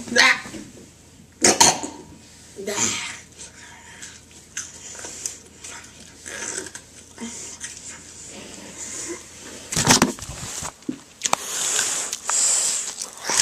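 Eating a fried chicken strip close to the camera microphone: biting and chewing mixed with knocks and rustles from handling the food and the camera. The loudest knock comes about ten seconds in, and a longer stretch of rustling follows near the end.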